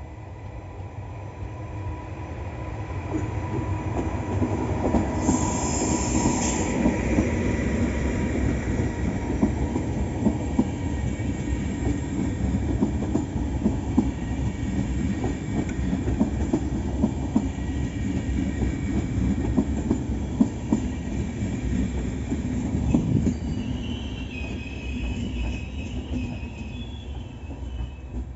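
A train passing through a station, its wheels clattering rapidly over the rails; the sound builds, holds, then fades. There is a brief high hiss about five seconds in and a wavering high wheel squeal near the end.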